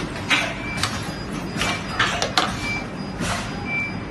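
Irregular clicks and scrapes of cylindrical metal battery cells being set by hand into a welding fixture, over a steady low machine hum. A few short, faint, high beeps recur.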